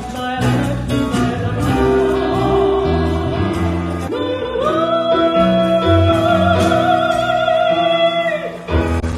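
Live band and singer finishing a song. The closing vocal note is held for about four seconds with vibrato over sustained band chords, then cuts off, and applause begins right at the end.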